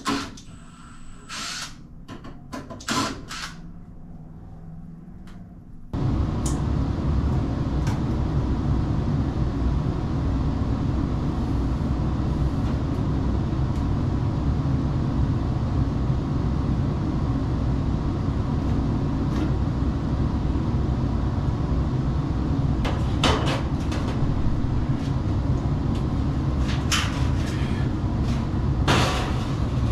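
A few light clicks and knocks of hand work on a furnace. About six seconds in, a steady loud mechanical rushing hum starts suddenly and runs on without a break. Near the end, sharp clanks of sheet-metal ductwork being handled sound over it.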